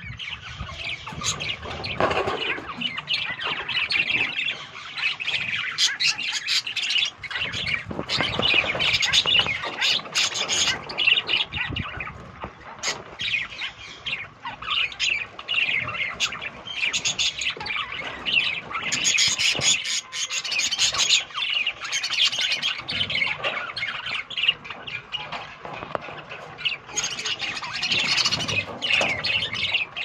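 A flock of budgerigars chattering, chirping and squawking without a break, swelling louder in a few stretches.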